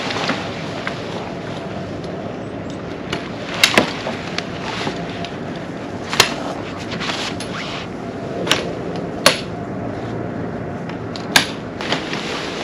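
Sharp knocks, about six at irregular intervals a second or two apart, two of them close together, over a steady background noise.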